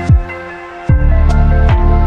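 Chillstep background music: a deep bass line with kick drums that fall in pitch, about one every 0.8 s. The bass drops out briefly near the start and comes back about a second in.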